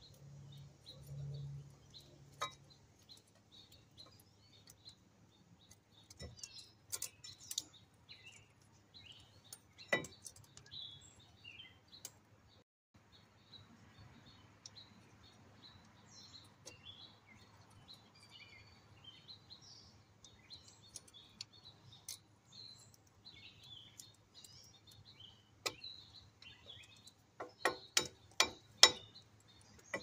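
Scattered sharp metallic clicks and taps from brake pads being fitted into a disc brake caliper bracket, with a quick run of clicks near the end, while birds chirp in the background.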